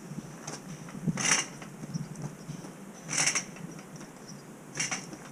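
A hand truck loaded with cast iron radiator sections bumping down concrete steps: three short clattering scrapes, roughly two seconds apart.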